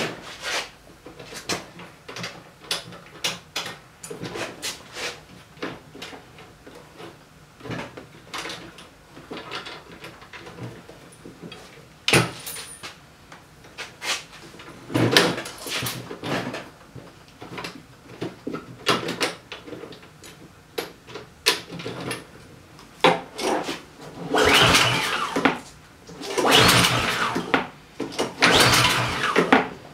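Recoil starter rope pulled on a Poulan Pro PRG21 snowblower's four-stroke engine, cranking it in short one-second pulls without it catching and running. There is one pull about halfway through and three in quick succession near the end, with scattered clicks and knocks of handling in between. The engine starts only on starting fluid and is not taking fuel, which the mechanic is almost certain means the carburetor has to come off.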